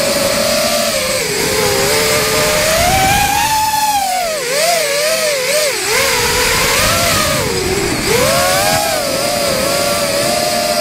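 Radio-controlled car's motor running at high revs, its whine rising and falling in pitch with the throttle over a low rumble; between about four and six seconds in the pitch wavers up and down and dips before climbing back.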